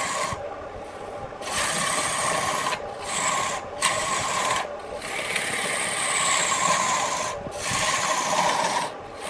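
Woodturning lathe work: a turning tool scraping and cutting against spinning wood, a loud rough rasping noise that stops briefly about six times.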